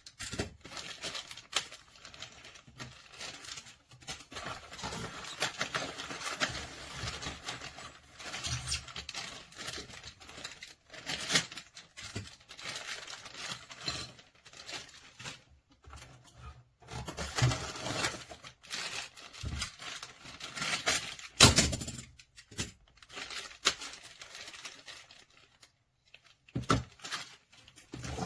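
Irregular rustling, crinkling and clicking of objects being handled close up, with a few louder knocks.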